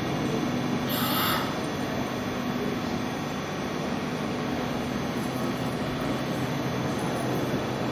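Steady rushing hum of an ICE high-speed electric train approaching, with a short hiss about a second in.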